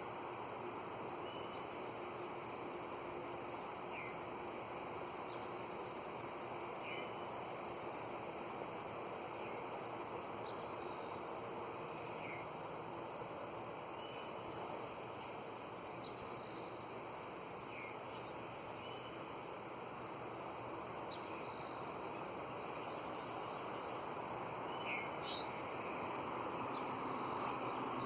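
Insects trilling in one steady, high continuous tone. Short bird chirps come every second or two, over a low, even background hum.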